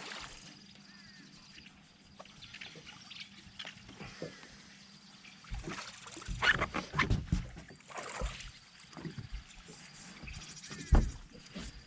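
Water splashing and trickling around a fishing boat, with scattered knocks and clatter, the loudest a sharp knock about eleven seconds in.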